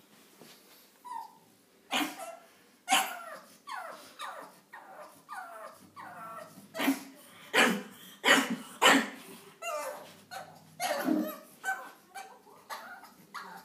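Pug barking over and over in short, sharp yaps, some dropping in pitch like whiny yelps, at a cat blocking his way on the stairs.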